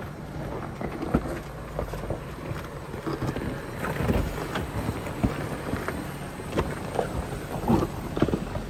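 Jeep Wrangler Rubicon crawling slowly down a rock ledge: a low engine rumble with scattered knocks and scrapes as the tyres and underbody work over the rock.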